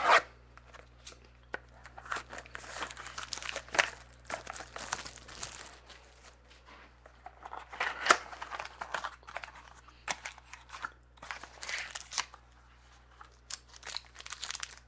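A thump right at the start, then packaging crinkling and tearing in irregular bursts as a sealed mini box of trading cards is opened by hand.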